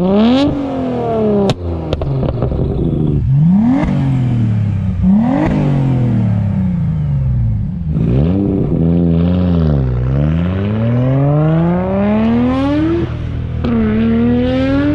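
Twin-turbocharged car engine revving hard, its pitch climbing and falling again several times, with a few sharp cracks from the exhaust early on.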